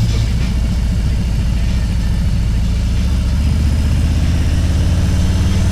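Motorcycle engine running steadily at a low, even pace, with no rev changes.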